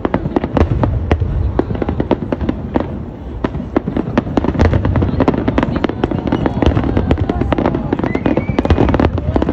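Aerial fireworks display: a rapid, dense barrage of shells bursting with sharp cracks and crackling, over a continuous low rumble.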